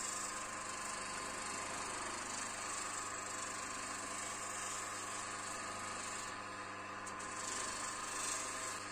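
Electric bench motor spinning an abrasive wheel on an extended shaft, a steady hum with an even hiss as a sickle's grooved handle is ground against the wheel.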